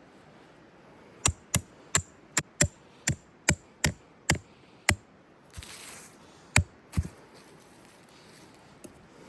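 Chopping with a blade on wood: about ten sharp, evenly paced strikes, two to three a second, then a short pause, a brief rustle, and two more strikes.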